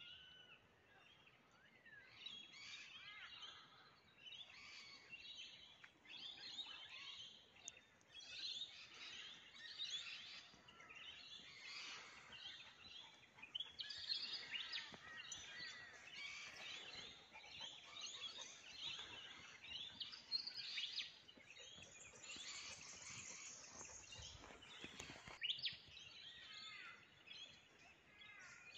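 A faint chorus of birds chirping and warbling, with many short calls overlapping.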